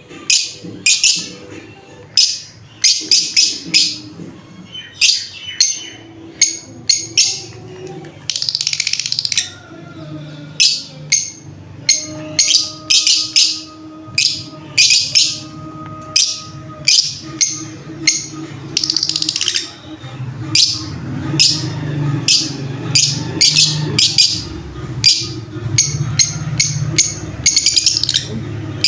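Lovebird chirping: short, shrill, high chirps repeated several times a second, over a steady low hum.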